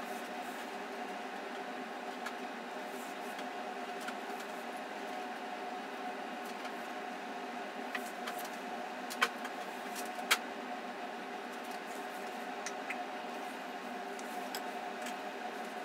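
Swivel knife being worked through sheath leather on a granite slab: faint scattered ticks, and two sharp clicks about nine and ten seconds in. A steady hum with several fixed tones runs underneath throughout.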